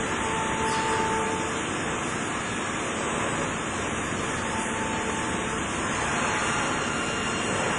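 TBT BWW 250 CNC deep-hole boring machine running: a steady rushing noise with a faint whine that comes and goes.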